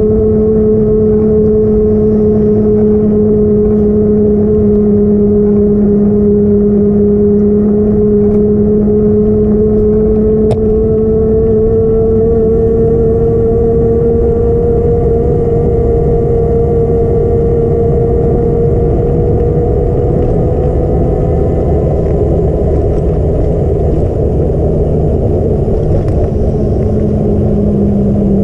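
Truck driving along a street at a steady pace: a continuous engine drone with a strong hum that drifts slowly in pitch, over road rumble.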